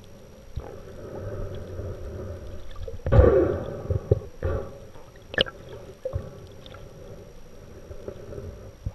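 Muffled underwater sound heard through a diving camera's housing: water gurgling and sloshing with irregular swells, a louder rushing surge about three seconds in, and a few sharp knocks.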